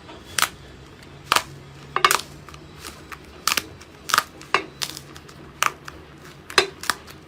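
Slime being handled and pressed, giving sharp, irregular pops and clicks, about ten of them, with a few closer together near two seconds in.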